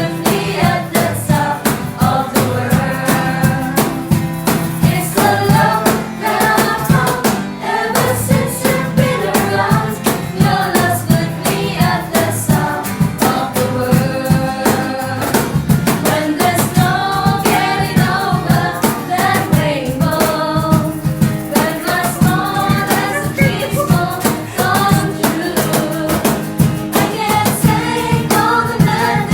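A song sung by several voices over band accompaniment with a steady drum beat.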